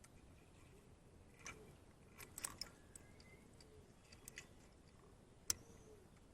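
Faint, sparse small clicks and light scratches of a thin terminal release tool being worked into a plastic two-pin connector to free its terminals. The sharpest click comes about five and a half seconds in.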